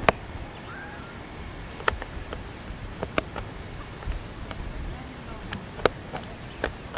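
Scattered sharp clicks and knocks at irregular spacing over a steady hiss, with a faint voice about a second in.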